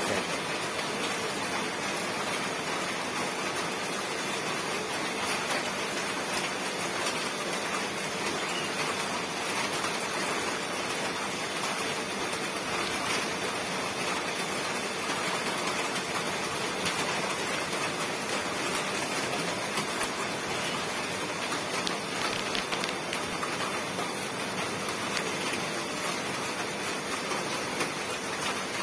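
Steady rain, an even unbroken hiss of falling water.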